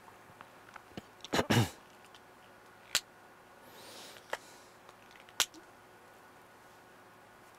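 Quiet room broken by a few sharp clicks and one short, loud burst of noise about a second and a half in, the loudest sound here.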